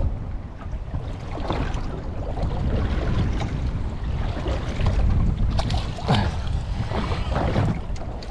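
Wind buffeting the microphone over water lapping against a small wooden boat's hull at sea, with a run of sharper splashes and knocks in the second half as a fish is brought to the side.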